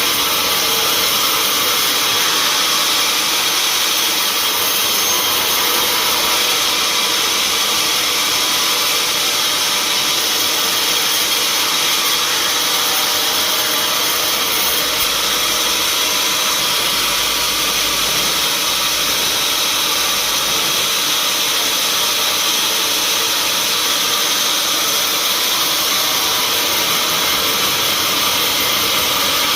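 Sawmill machinery running steadily, a loud constant noise with no breaks or rhythm.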